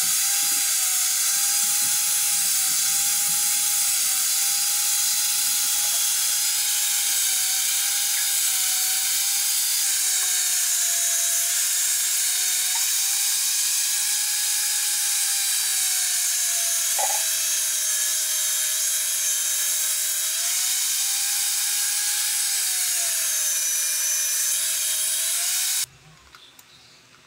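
Electric angle grinder with a thin cutting disc running steadily while cutting grooves into a block of wood; its motor whine dips and recovers in pitch as the disc bites. It stops abruptly near the end, leaving only a faint background.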